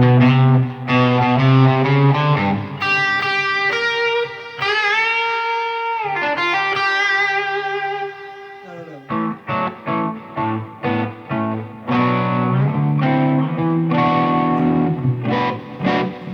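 Electric guitar played through a Bludotone tube-preamp amp's overdrive channel with the drive turned well down. Held chords open it, a bent single-note line with vibrato comes a few seconds in, then a run of short choppy chord stabs, and ringing chords near the end.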